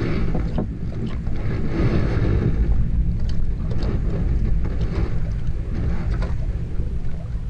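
Steady low rumble of a small motor running, with wind buffeting the microphone and a few light knocks.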